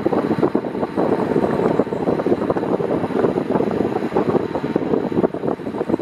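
Air blown by an Arno Silence Force 40 cm (VF40) pedestal fan on its minimum speed buffeting the microphone: a steady, rough rush of wind noise with a fast flutter.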